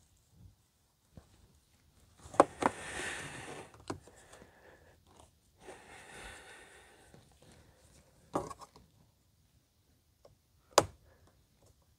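Plastic trim pry tool scraping and clicking around a clipped-in dashboard defroster vent as it is worked loose from the soft dash pad. Short stretches of scraping and rubbing are broken by a few sharp clicks.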